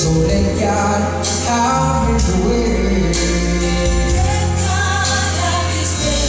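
Southern gospel song on a backing track: a steady bass, cymbal strokes about once a second, and a flowing melody line.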